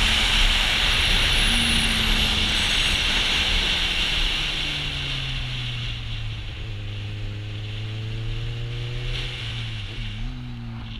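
Kawasaki Z800e inline-four with an Akrapovic exhaust, heard from on the bike with heavy wind noise on the microphone. The revs rise briefly, then fall as the bike slows. The wind dies down and the engine holds steady at low revs, with a quick dip and rise in revs near the end.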